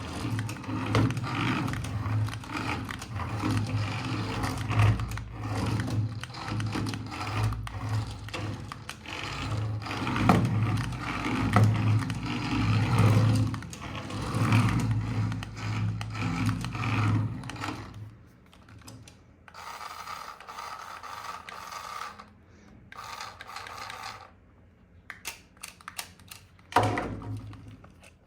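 Small electric motor and plastic gears of an RC toy vehicle whirring in spurts, with clicks and knocks of handling. It runs loudly at first and turns quieter and more broken after about eighteen seconds.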